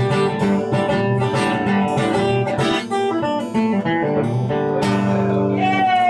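Acoustic guitar strumming and picking an instrumental passage of a country song, played live.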